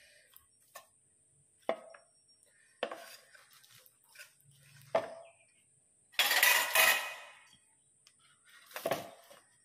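Kitchenware clinking and knocking as roasted eggplants and eggs are handled in a pot and on a plate: scattered light knocks and clinks, with a louder clatter lasting about a second around six seconds in and another knock near the end.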